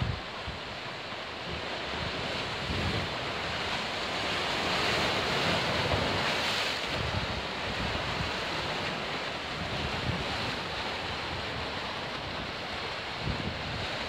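Sea waves surging and breaking among shoreline rocks: a steady foaming wash that swells louder about halfway through. Gusts of wind buffet the microphone throughout.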